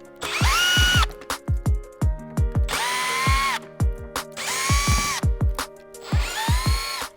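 A power driver with a T15 bit runs in four short bursts, each rising quickly to a steady whine, backing out the factory screws along the bottom edge of a car's front bumper. Background music with a steady kick-drum beat plays throughout.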